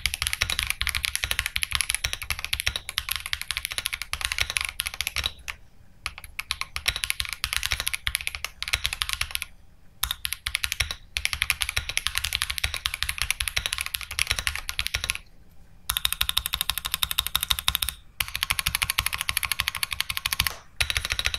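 Typing test on an Akko Mod005 gasket-mount 65% mechanical keyboard: fast, continuous keystrokes clacking in runs of several seconds, broken by brief pauses about 6, 10, 15 and 18 seconds in.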